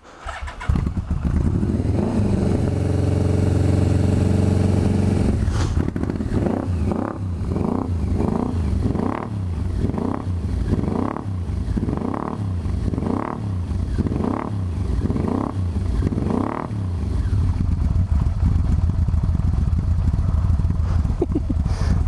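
Yamaha VMAX V4 motorcycle engine starting and idling. It is then revved in about a dozen quick throttle blips, roughly one a second, before settling back to a steady idle.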